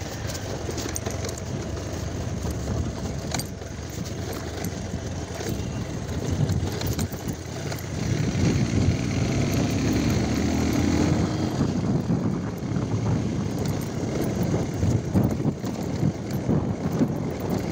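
Motorcycle riding along a rough dirt track: engine running under a steady rumble, with scattered knocks from the bumpy ground, getting louder about halfway through.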